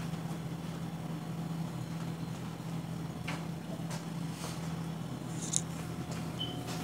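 Steady low room hum with a few faint ticks and one sharp click about five and a half seconds in.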